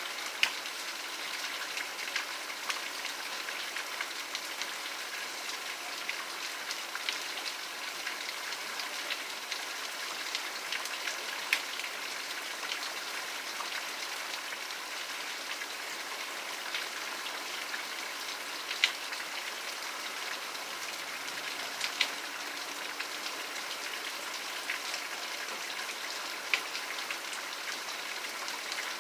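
Steady rain falling, an even hiss with scattered louder drops ticking on a surface a few times.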